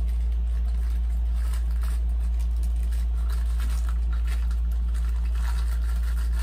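A steady low hum, with faint crinkling and scraping as a small plastic parts bag is handled.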